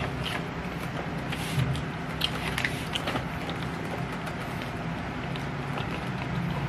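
Close-miked chewing and mouth sounds of someone eating rice and curried chicken: small wet clicks and crackles, busiest in the first half. A steady low hum runs underneath.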